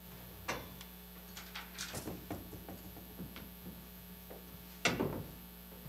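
Quiet room tone with a steady electrical hum from the sound system, faint scattered knocks and rustles, and one louder bump near the end.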